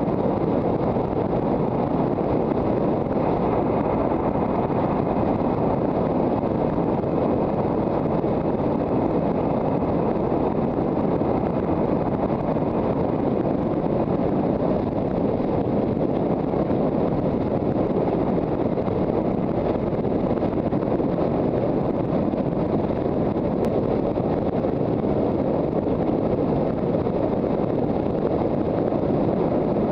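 Wind buffeting the microphone of a helmet-mounted camera while riding an electric motorcycle at road speed: a steady, loud rush.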